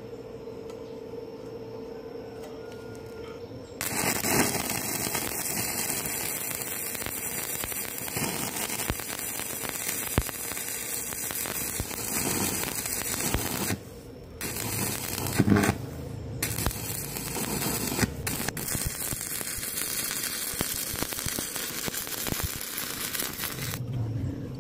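Stick (shielded metal arc) welding: the electrode's arc crackles steadily as a bead is laid along a steel joint. The arc starts about four seconds in, breaks off briefly about halfway through, and is struck again.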